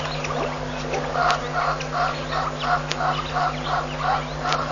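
A bird calling in a steady repeated series of short notes, about three a second, starting about a second in, over a steady low hum.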